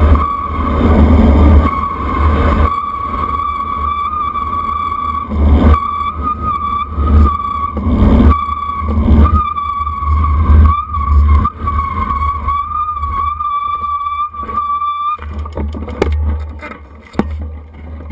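Wind buffeting the microphone of a bicycle's handlebar camera on a fast road descent, with a steady high whine or squeal that wavers slightly. The whine cuts off about fifteen seconds in as the bike slows to a stop, leaving quieter rattles and clicks.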